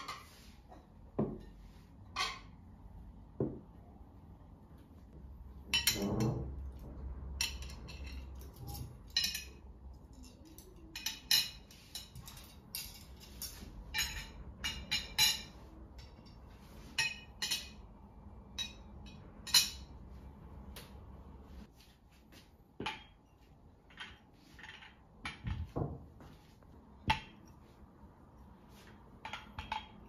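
Table being set: ceramic plates set down on a cloth-covered table and metal knives and forks laid on them, a run of short, sharp clinks of metal on china. Near the end, glass tea glasses are set on glass saucers.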